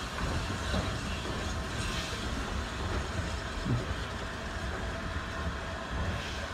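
Coaches of a steam-hauled passenger train rolling slowly along the platform, a steady low rumble with a few clicks from the wheels on the rails.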